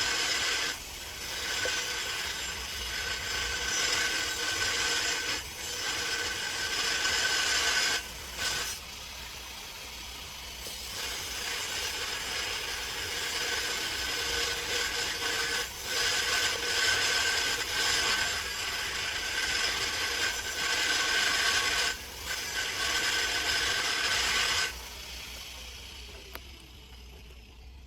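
A small motorised tool working against plastic, running with a steady whine. It drops out briefly several times, eases off for a couple of seconds about a third of the way in, and stops shortly before the end.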